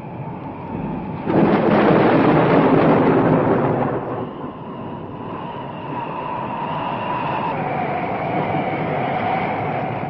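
A train passing, a loud rush of rolling noise that swells about a second in and eases after about four seconds into a steadier rumble with a faint high tone running through it.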